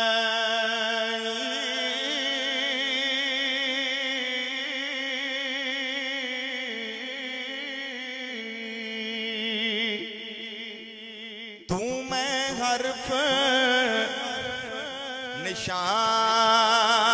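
Male naat reciter singing unaccompanied, drawing out long melismatic notes with a wide wavering vibrato over a steady drone. About twelve seconds in the melody turns busier, with quick rises and falls in pitch.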